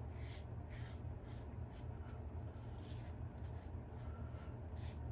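Mühle Rocca double-edge safety razor scraping through lather and stubble in short strokes, about two a second, over a steady low hum.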